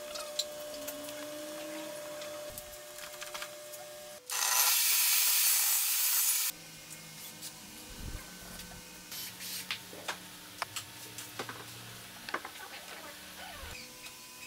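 Small wooden parts and tools being handled on a workbench: light rubbing, taps and clicks. About four seconds in, a loud hiss cuts in and stops abruptly some two seconds later.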